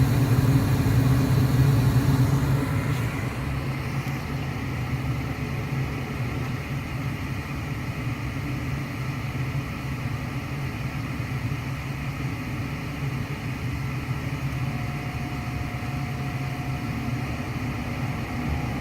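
Gas furnace's draft inducer fan running steadily through the start-up sequence, before the circulating blower comes on. The hum drops to a lower, steady level about three seconds in.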